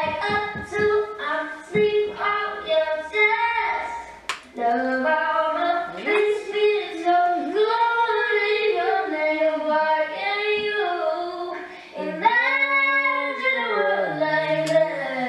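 A young woman's voice singing a pop melody, with long held notes and slides between pitches, most clearly in the second half.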